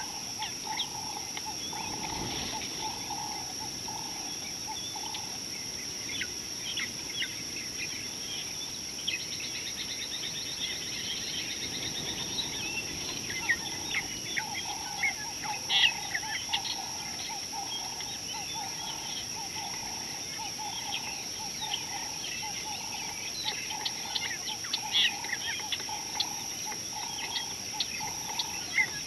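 Wild birds chirping and calling in short, scattered notes over a steady high-pitched drone.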